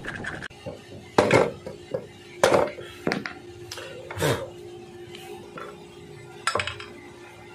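Metal hand tools and bolts clinking and clanking against the aluminium crankcase of a Yamaha Mio i 125 engine while its crankcase halves are fitted together and bolted up. There are about five sharp clanks, spread out irregularly.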